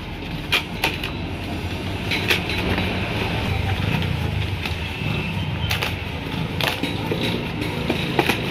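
Hands repacking plastic packing inserts into a metal parts tin: several sharp clicks and knocks scattered through, over a steady low rumble of background noise.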